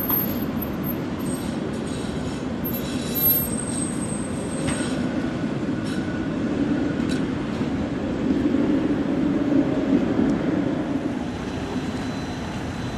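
Tatra KT4 articulated tram rolling past with a steady low rumble, its steel wheels squealing thinly and high on the rails in the first half, then a lower squeal and a few sharp clicks around the middle.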